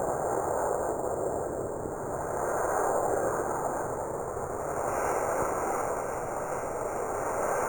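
Steady rushing wind noise buffeting the microphone, with no clear pitch and little change in level.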